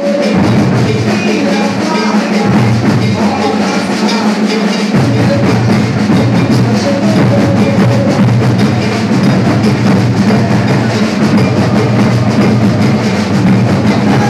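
Maracatu percussion ensemble playing a dense, steady rhythm on deep alfaia bass drums and snare drums. The lowest drums fill in more fully about five seconds in.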